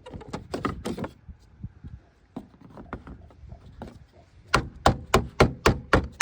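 Handling of the car's engine air filter in its plastic air box: a few light clicks and rustles, then a quick run of sharp knocks, about three a second, near the end.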